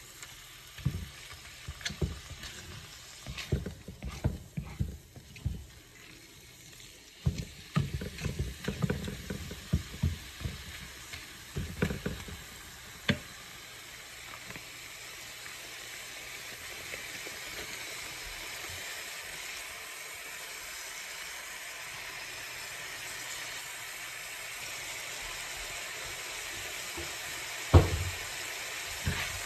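Ground meat frying in a skillet, with a wooden spatula scraping and knocking against the pan as it breaks up the meat through the first half. Then a steady sizzle that slowly grows louder, and one sharp knock near the end.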